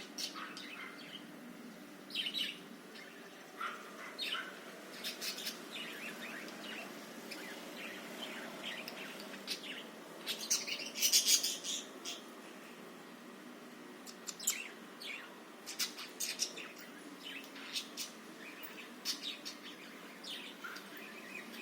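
Budgerigars (parakeets) chirping and chattering in irregular runs of short, high calls, loudest about halfway through.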